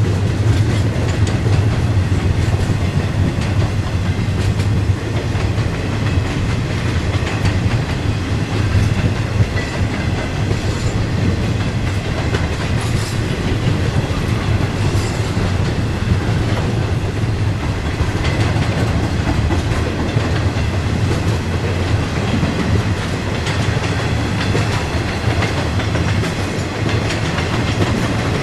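Double-stack intermodal freight cars rolling past on steel wheels, a steady, low rumble of wheels on rail.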